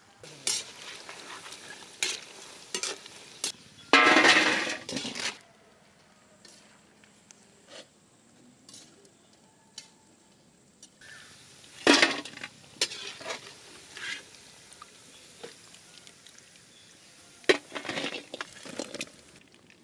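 Marinated chicken deep-frying in hot sunflower oil in a pan, heard as bursts of sizzling. A utensil clinks and scrapes against the pan in between, and the loudest sizzle comes about four seconds in.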